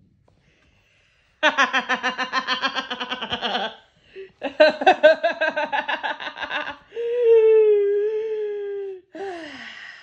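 A person laughing in two rapid, pulsing bouts, then holding one long vocal note that drifts slightly lower, ending with a short falling vocal glide.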